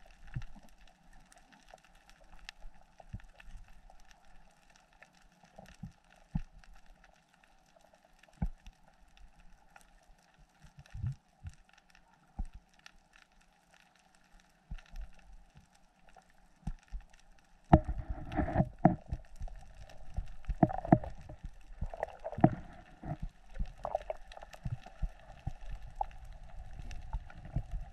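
Underwater sound picked up by an action camera in its waterproof housing: faint scattered clicks and pops over a quiet background, then, from about two-thirds in, louder irregular muffled knocks and rushing of water against the housing as the diver moves.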